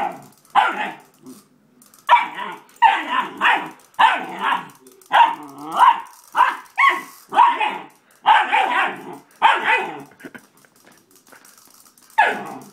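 Doberman puppy barking in a run of about a dozen short, sharp barks, then falling quiet for about two seconds before one more bark near the end.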